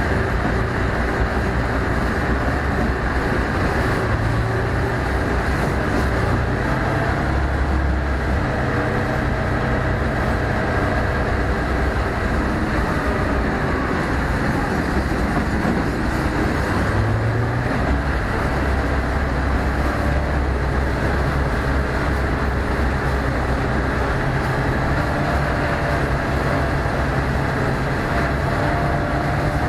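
ZSU-57-2 self-propelled anti-aircraft gun on the move, heard on board: its V-12 diesel engine running steadily under load while the steel tracks clatter over gravel.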